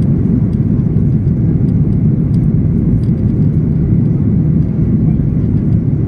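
Steady low roar inside the cabin of a Boeing 737-800 during its climb-out: the CFM56-7B turbofan engines and rushing airflow, heard from a window seat over the wing.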